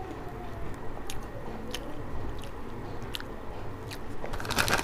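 Someone chewing very thin, crisp banana chips: sharp crunches about every half second, with a louder burst of crackling near the end.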